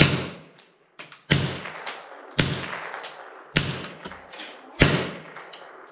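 Rifle shots in a rapid string, five evenly spaced about a second and a quarter apart, each with a ringing tail under the roof of the covered firing line.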